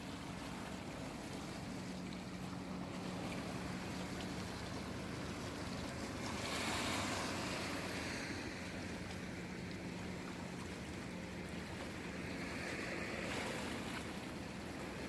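Waves of the Seto Inland Sea washing in. One wash swells about six or seven seconds in and a smaller one comes near the end, over a steady low hum.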